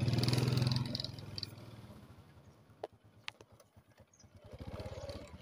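An engine running with a pulsing hum, loud at first and fading away over about two seconds. Two sharp clicks come in the middle, and the engine sound builds again near the end.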